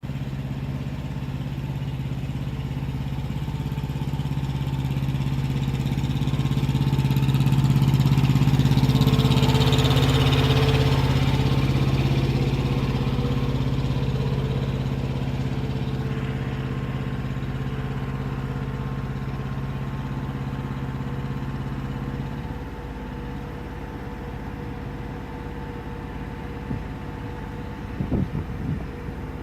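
Semi truck's engine running with a steady hum that grows louder about eight to eleven seconds in. The hum drops off abruptly about 22 seconds in, leaving a lower rumble, and a few short knocks come near the end.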